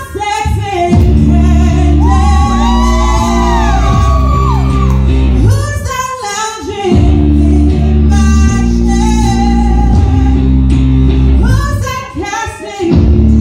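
A woman singing loudly into a microphone over backing music with a heavy bass line; the music drops out briefly about six seconds in and again near the end, leaving the voice almost alone.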